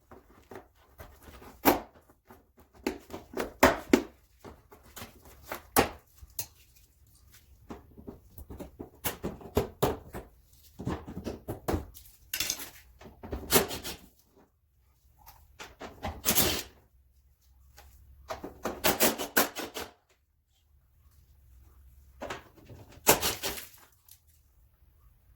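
Irregular clicks, knocks and rattles of plastic interior trim and its push-in clips being worked loose by hand in an SUV's rear cargo area, with several longer clattering bursts.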